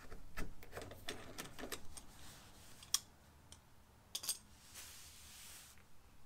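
Small metallic clicks and rattles of Cleco sheet-metal fasteners being handled and set along the radiator aluminum panel's flange, with a sharp single click about three seconds in and a soft hiss for about a second near the end.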